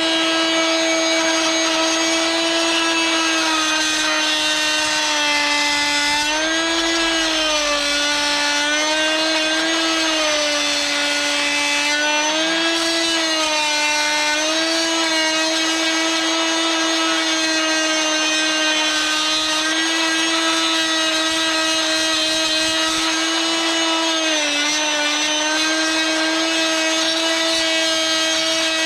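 Small handheld electric power tool running without a break with a steady high whine, its pitch sagging briefly about six, nine, twelve, fourteen and twenty-four seconds in as it bites into the chipboard edge of the blade slot while cutting the recess for the saw's blade insert.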